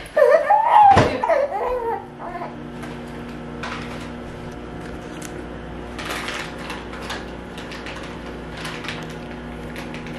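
Baby crying for about the first two seconds, the cry stopping as the bottle goes in. After that a steady low hum, with a few faint soft clicks.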